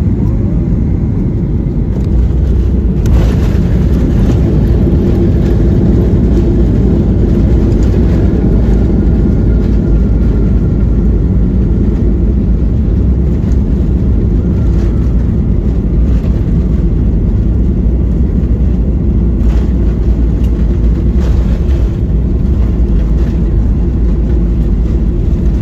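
Cabin sound of a Boeing 737-800 touching down and rolling out: a thump about three seconds in as the wheels meet the runway, then a loud steady rumble from the tyres and its CFM56-7B engines as the ground spoilers are up, with a few knocks from the runway surface later on.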